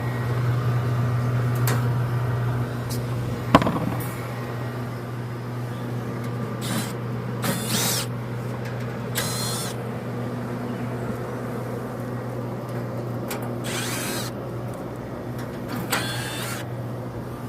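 Walk-in freezer condensing unit running with a steady low hum while the system calls for cooling. A sharp click comes about three and a half seconds in, and several short handling noises come later.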